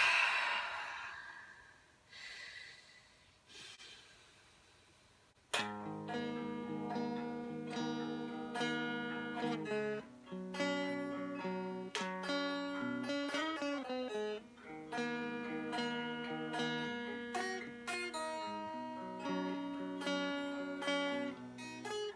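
Electric guitar being played. After a fading hiss and a few quiet seconds, chords and picked notes start suddenly about five seconds in and carry on, with a bent note around the middle.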